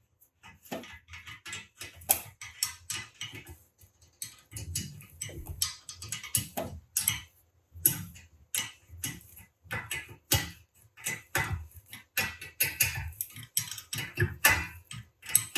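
Cordless drill with a nut driver tightening treadmill screws in short runs, the motor's low hum coming and going under a dense, irregular clatter of clicks.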